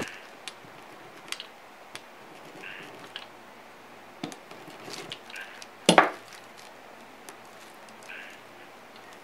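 Hand brayer being picked up and rolled over feathers on a wax-coated board, with light clicks and taps of the roller and its handle and one louder knock about six seconds in.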